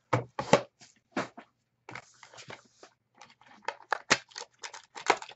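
Hands handling trading-card packaging on a desk: a few sharp knocks of the cardboard box, then rustling and a quick run of small clicks and crinkles as the wrapping is opened.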